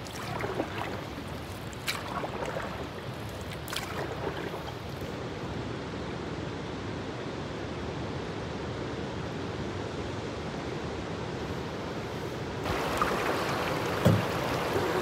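Canoe paddle strokes dipping and pulling through the water about every two seconds over a steady wash of water. Near the end the wash of rushing current grows louder as the canoe reaches fast water, with a single knock.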